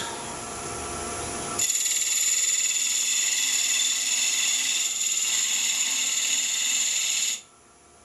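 Parting tool cutting a tenon into spinning eucalyptus on a wood lathe. The lathe runs with a steady hum. About a second and a half in, a loud, steady, high-pitched cutting noise starts, and it stops suddenly near the end.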